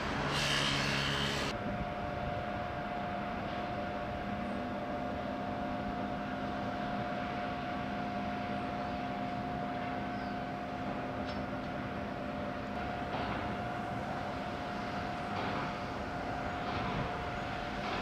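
Steady drone of shipyard machinery, with a steady hum and a lower tone running under an even noise and a few faint knocks. A brief brighter hiss sits in the first second and a half.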